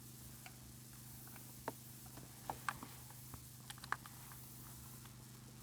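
Faint, scattered clicks and taps of car interior parts being handled and fitted, a few single knocks a second or more apart, over a steady low hum.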